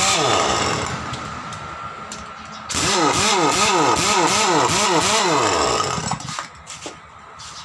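Heavy-duty 1-inch pneumatic impact wrench running free, its pitch rising and falling about three times a second. It winds down about a second in, runs again from about three seconds in and stops about six seconds in, followed by a few light knocks.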